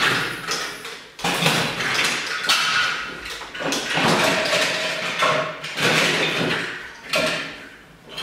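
Plastic Lego bricks clattering as hands rummage and sort through a pile of them, in several bursts of rattling.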